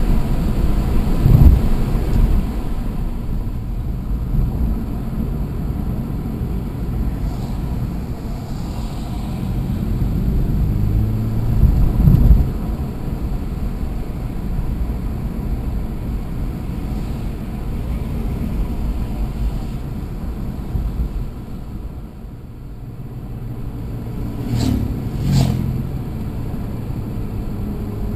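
BMW E90 330i's N52 3.0-litre straight-six heard from inside the cabin, driving along with steady road and tyre rumble. It swells louder under acceleration about ten to twelve seconds in, eases back later, and has two short louder surges near the end.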